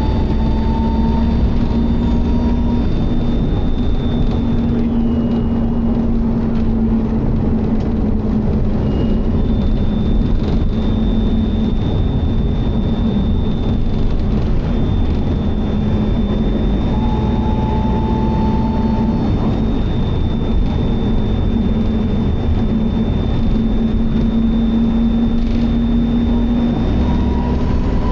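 Optare Solo bus running with its Allison automatic gearbox: a steady engine drone, with a gearbox whine that rises in pitch twice. Over it a thin, constant high-pitched whine comes and goes, the strange noise this bus makes.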